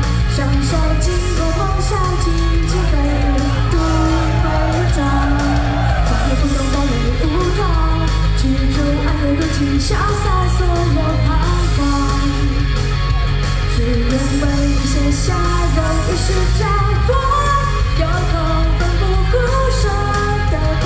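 A female singer singing live into a microphone over loud, amplified pop backing music with a heavy bass line.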